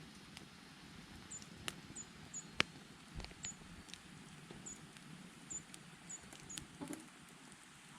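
A small bird in a pine tree gives about eight very short, thin, high-pitched calls. The uploader takes it for a grey-streaked flycatcher (Ezo-bitaki). Over this, a wood campfire crackles with sharp pops, the loudest about two and a half seconds in.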